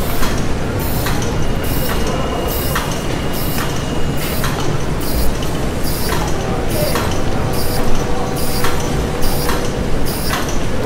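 Loud, dense mechanical din with a heavy clank repeating about every 0.8 seconds, as of rhythmic industrial machinery.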